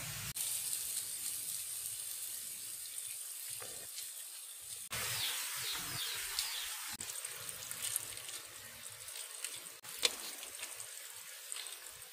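Food sizzling in a black clay cooking pot as handfuls of cut vegetables go in: a steady hiss that cuts off and starts again abruptly a few times.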